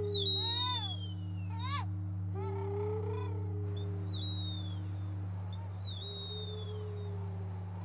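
Wooden bird-whistles playing bird-like calls: several high whistled notes that slide downward, a quick up-and-down trill about two seconds in, and a warbling call, all over a steady low drone.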